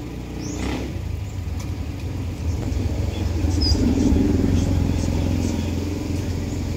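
Low rumble of a motor vehicle's engine, swelling to its loudest about four seconds in and then easing off.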